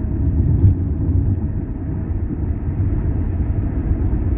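Steady low rumble of a moving road vehicle: engine and tyre noise while driving.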